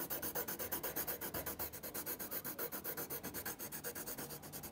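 Graphite pencil rubbing back and forth on lined notebook paper, shading in a solid area with quick, even strokes several times a second.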